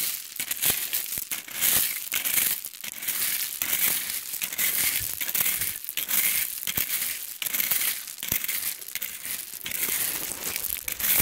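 Crushed rock being raked aside with a small metal hand rake: a rapid, irregular scraping and clattering of stones.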